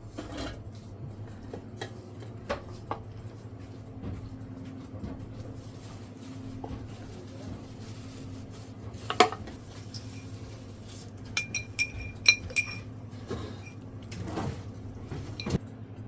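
Kitchen utensils knocking and clinking against pots and dishes: a sharp knock about nine seconds in, then a quick run of ringing metallic clinks around twelve seconds, over a steady low hum.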